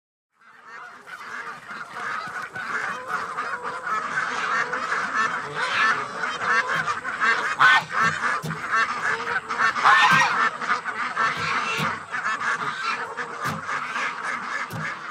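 A flock of geese calling, many honks overlapping in a dense chatter that fades in about half a second in.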